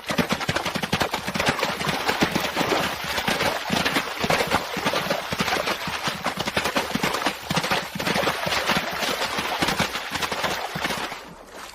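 Horse galloping through shallow water: rapid, uneven hoofbeats with splashing, dying away near the end.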